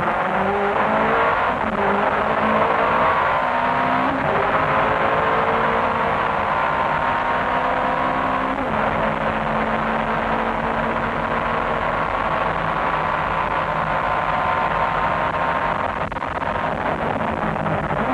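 Nissan R90CK's 3.5-litre twin-turbo V8, running with both wastegates stuck shut, heard from inside the cockpit at full throttle. It climbs in pitch through the gears, with upshifts about a second and a half, four and eight and a half seconds in, then holds a near-steady high note.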